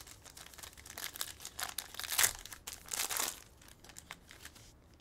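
Plastic wrapper of a trading card pack crinkling and tearing as it is pulled open by hand, in irregular crackling bursts that are loudest about two and three seconds in and die away near the end.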